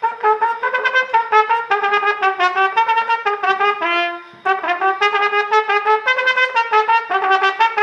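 Cornet playing a quick tune of short separate notes, with a held note and a brief break about four seconds in. It is played right up against the horn of an Edison tinfoil phonograph to record it onto tinfoil.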